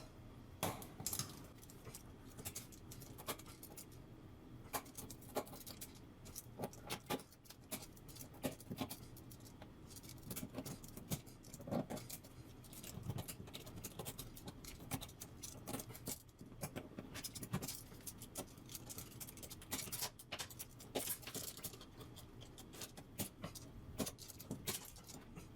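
Small mosaic tiles clicking and clinking against each other as they are cut out of their mesh-backed sheet by hand, in irregular faint taps throughout.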